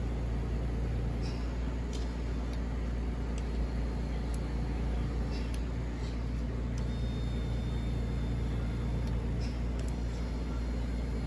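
Electric recliner's motor running with a steady low hum as it drives the tilt linkage, with a few light clicks from the mechanism.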